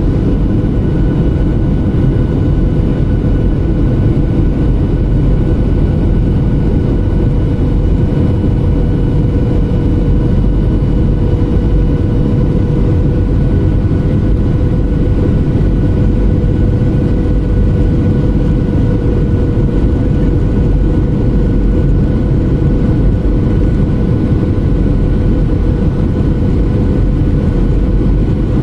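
Jet airliner cabin noise in flight: a loud, steady low rush of engines and airflow, with a constant hum note running through it.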